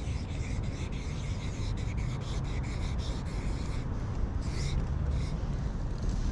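Black marker tip rubbing across the painted metal side of a utility cabinet while a graffiti tag is written: rapid, short scratchy strokes that stop about four seconds in, with a couple of brief ones after. A steady low rumble runs underneath.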